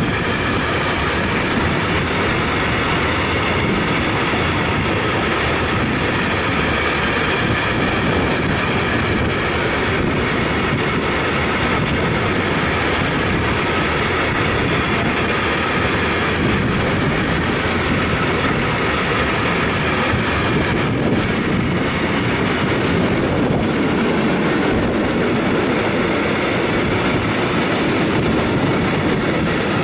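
Long freight train of tank wagons passing through at speed: a loud, steady rumble of wheels on the rails.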